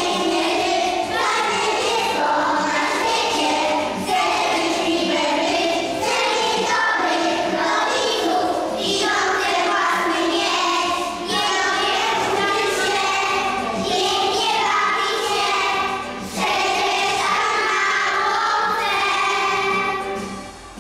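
A group of young preschool children singing a song together, the sound falling away right at the end.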